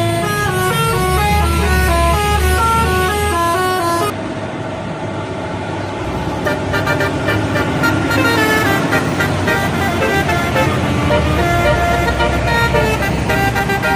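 Bus telolet musical horns playing a quick melody of trumpet-like notes stepping up and down, over the low hum of a bus engine. About four seconds in the sound changes abruptly to another bus, whose horn notes sound again after a short gap.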